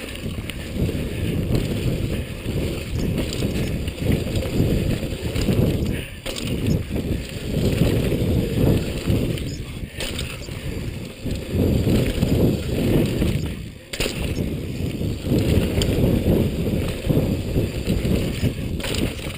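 Mountain bike descending a rough downhill trail: a continuous rumble of tyres and rattling frame over the dirt and rocks, with wind buffeting the helmet camera's microphone and a few sharp knocks from bumps.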